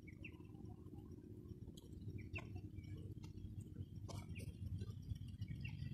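Faint low rumble of wind on the microphone, with soft footsteps on grass and a few sharp clicks of a handheld camera and gimbal being handled. A few short high chirps are heard over it.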